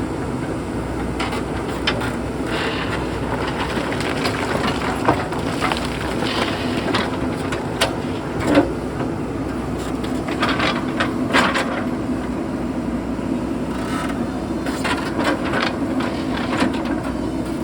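JCB backhoe loader's diesel engine running steadily under load, with repeated knocks and scraping of rocks against the steel bucket; the sharpest knock comes about halfway through.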